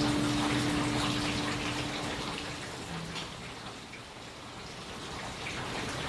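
Steady rain with scattered individual drops ticking. A held low music note fades out about two and a half seconds in, leaving the rain alone.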